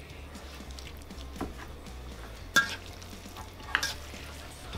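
Fork stirring a large bowl of fettuccine Alfredo in a stainless steel mixing bowl, with three sharp clinks of the fork against the bowl about a second apart, the loudest midway.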